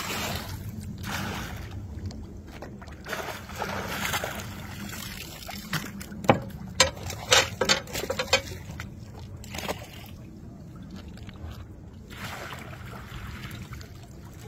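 Water splashing and sloshing as a hooked catfish thrashes at the surface. In the middle comes a quick run of sharp slaps and knocks as the fish is brought up in a metal-framed landing net.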